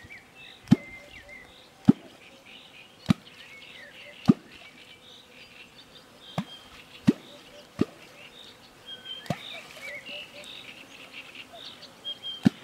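Catfish kwok striking the water: a series of about nine sharp, deep plops, evenly spaced at first and then irregular. Small birds chirp in the background.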